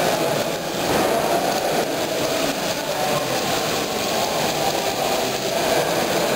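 Steady background din of a busy model railway exhibition hall, an even rumbling hubbub with no single sound standing out.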